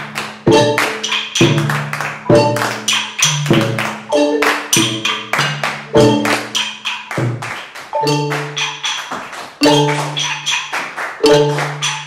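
A group percussion pattern: low, ringing xylophone notes struck in rhythm under hand claps and sharp wooden taps, several strikes a second.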